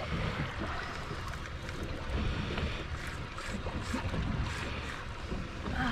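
Wind buffeting the microphone over the steady wash of open water against a small boat's hull: an even hiss with an uneven low rumble.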